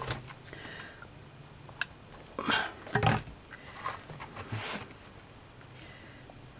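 Light handling noises of hands working a small chipboard model with thin wooden strips: a few scattered soft taps, clicks and rustles, the loudest about two and a half to three seconds in.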